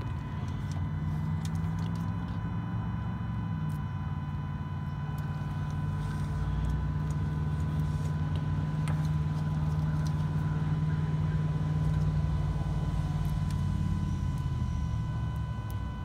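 AirDog II diesel fuel lift pump running on a direct 12-volt feed: a steady electric-motor hum with a faint high whine, dropping slightly in pitch about three and a half seconds in and stopping about a second before the end. The pump runs when fed straight 12 volts, which points to a bad relay feeding it.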